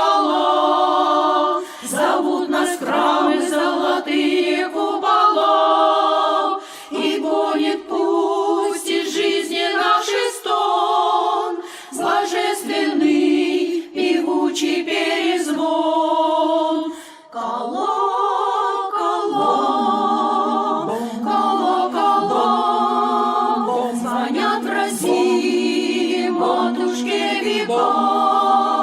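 Women's vocal ensemble singing, with held notes and short breaks between phrases, the longest about 17 seconds in.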